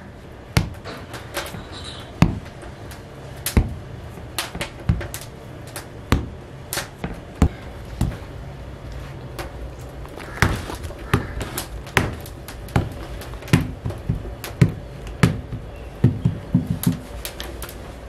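Hands slapping and patting a ball of bakarkhani dough flat on a wooden table: a string of irregular slaps, coming faster near the end.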